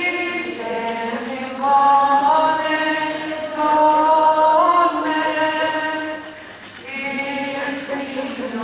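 Voices singing a slow chant-like hymn in unison, on long held notes that step up in pitch now and then. The singing dips about six seconds in, then picks up again with the next line.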